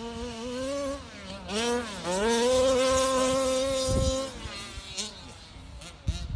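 MCD 29cc two-stroke engine of an HPI Baja 5B 1/5-scale RC car revving as it drives, a high buzz that rises and falls with the throttle. It is held at high revs from about two seconds in until about four seconds, then drops off to a lower, quieter running.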